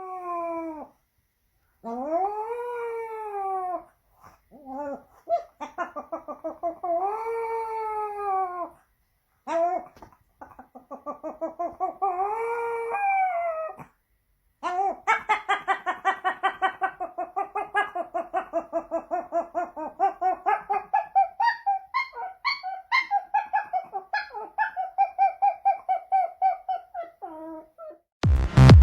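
A pet howling in long cries that rise and fall in pitch, with pauses between them. About halfway through it breaks into a long run of quick, pulsing cries, a few each second, held at one pitch.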